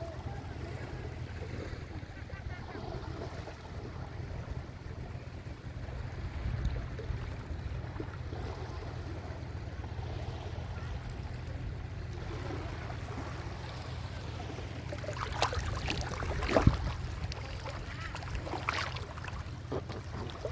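Sea waves washing against the shore over a steady low rumble, with a few short, sharper splashy sounds in the last few seconds.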